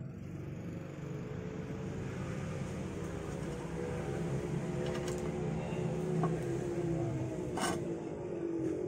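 A motor vehicle engine running steadily with a slight sag in pitch near the end, and a few light clicks about five and seven seconds in.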